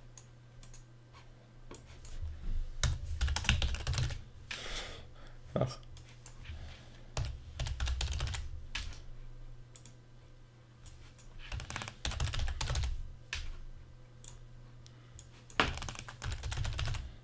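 Typing on a computer keyboard in four short bursts with pauses between.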